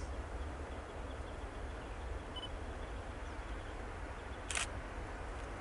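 Low, steady rumble of the diesel locomotives on an approaching grain train, still some way off. A single sharp camera shutter click comes about four and a half seconds in.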